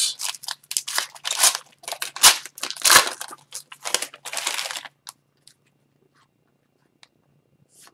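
Upper Deck hockey card pack's foil wrapper being torn open and crinkled in the hands for about five seconds. Then near silence apart from a few faint clicks as the cards are handled.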